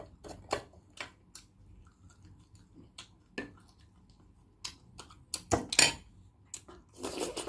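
Close-miked eating sounds of balut: scattered small clicks and taps of eggshell and utensils, a few sharper cracks about five and a half seconds in, and a short crackling rustle near the end.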